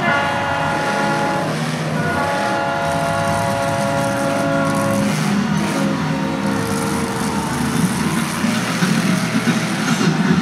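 Monster truck engine running and revving, getting louder and more uneven near the end. Over it come long, held horn-like tones that change pitch a few times.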